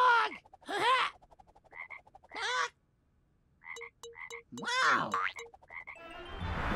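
Frog croaking: about four separate croaks, each rising and then falling in pitch, with short clicking blips between them around the middle.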